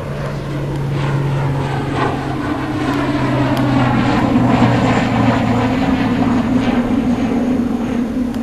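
Propeller aircraft passing overhead: a steady engine drone that swells to a peak about halfway through, its pitch dropping as it goes by.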